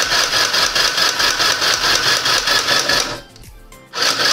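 CHILLAXPLUS SM201 mini electric sewing machine stitching at its fast speed, a rapid, even mechanical clatter from the needle mechanism. It stops about three seconds in and starts again briefly near the end.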